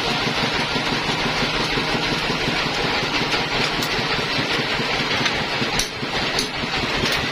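Sawmill machinery running steadily with an engine-like drone and a fast low pulsing, with a few sharp clicks about six seconds in.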